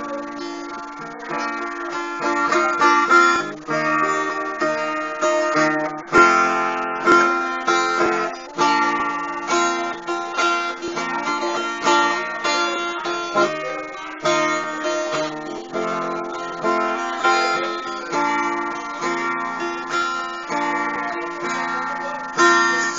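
Instrumental break of a romantic ballad: strummed acoustic guitar chords with no singing.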